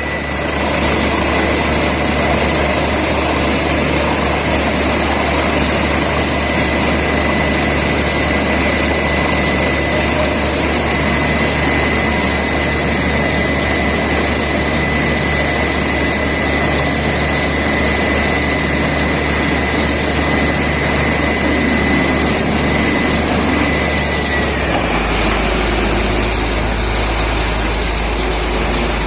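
Borewell drilling rig and its air compressor running steadily and loudly, with a thin high whistle over a low engine hum; about 25 seconds in, the whistle bends down and stops and the engine's low note shifts.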